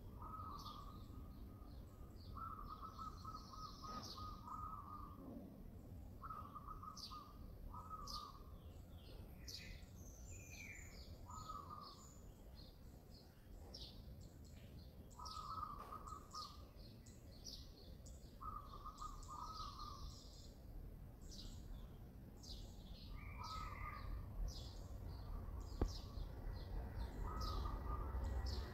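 Birds chirping with many quick high notes, while a steady mid-pitched call repeats every couple of seconds, over a low outdoor rumble that swells near the end.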